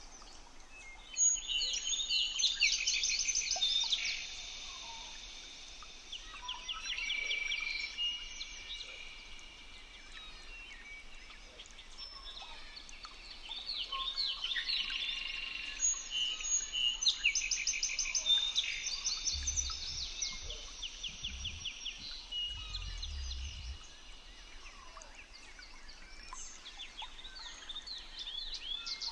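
Several birds singing, overlapping trains of rapid high chirps and trills that come in bouts every few seconds. A few low thuds come near the middle.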